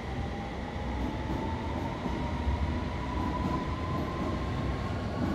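London Underground S Stock train pulling out past the platform: steady wheel and body rumble under a traction-motor whine that rises slowly in pitch as the train gathers speed.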